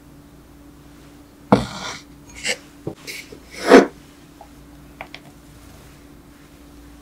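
Kitchen handling sounds: a sharp knock followed by a short rustle about one and a half seconds in, a few small knocks, a louder brief swish just before the four-second mark, then two faint clicks, over a faint steady hum.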